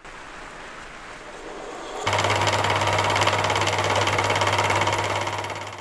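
Halifax 524 lathe, an Atlas-style clone, running with a milling cutter held by the drawbar in its spindle. A quieter mechanical sound for the first two seconds, then about two seconds in the running lathe comes in much louder with a steady motor hum and gear and belt noise, easing off near the end.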